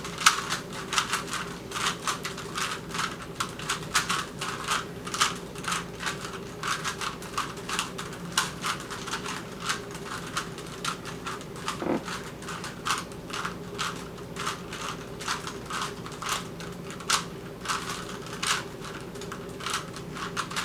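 Rubik's cubes being scrambled: plastic faces twisted in quick, irregular turns, giving a steady stream of clicks and clacks, several a second.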